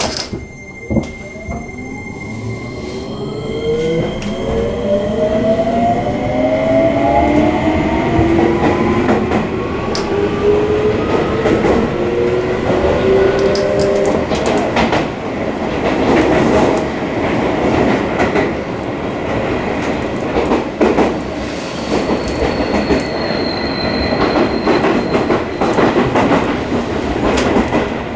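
Seibu 20000 series electric train pulling away and getting up to speed. A whine from the inverter and traction motors rises in pitch over the first dozen seconds, then gives way to steady running noise with wheel and rail-joint knocks.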